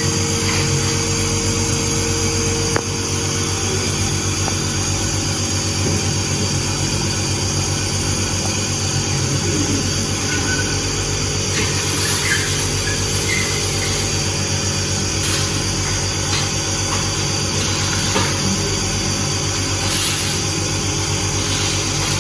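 Compressor nebulizer's motor running with a steady hum while it delivers a treatment meant to loosen phlegm. A small click about three seconds in, where one of its tones drops away.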